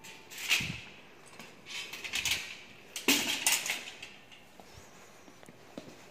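Handling noise: short clattering knocks and rustles in three clusters, about half a second, two seconds and three seconds in.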